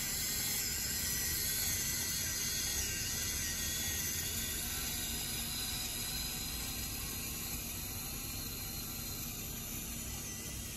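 Homemade radio-controlled PVC model tractor's small drive motor and gears whirring steadily as it drives through snow, growing slightly fainter as it moves away.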